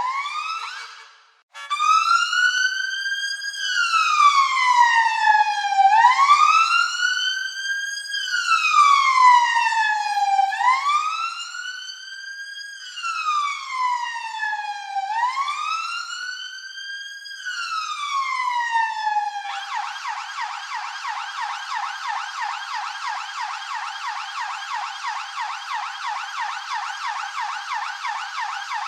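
Police siren wailing in slow rising and falling sweeps, each about two to two and a half seconds long. About twenty seconds in it switches to a fast yelp, several quick sweeps a second.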